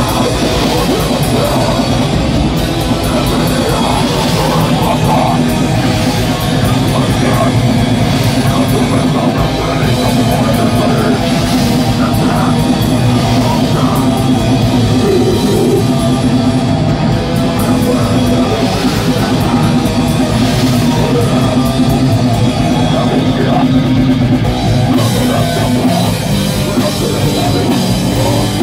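A live metal band playing loudly: distorted electric guitar and bass over a Tama drum kit with pounding drums and crashing cymbals.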